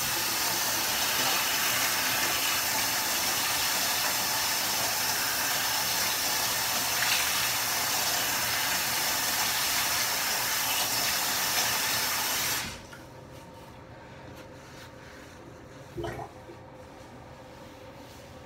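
Bathroom sink faucet running water in a steady stream, turned on suddenly and shut off sharply after about thirteen seconds. A short knock follows a few seconds later.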